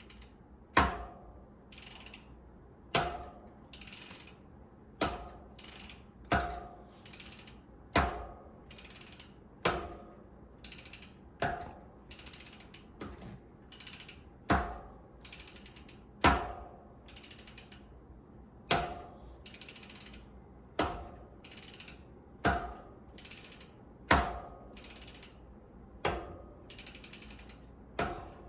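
DT 240S bicycle freehub ratchet ticking as it freewheels, broken about every two seconds, unevenly, by a sharp loud click that fades back into the ticking. The owner is unsure whether this noise is normal or a sign of a fault.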